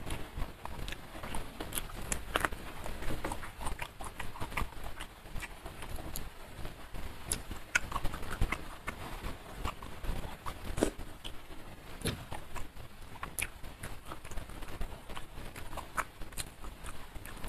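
Close-miked eating sounds: wet chewing and lip-smacking with many irregular sharp mouth clicks, as rice and fried fish in sambal are eaten by hand.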